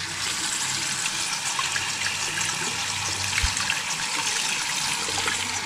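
Tap water running steadily into a bathroom sink as a kitten is bathed, with light splashing.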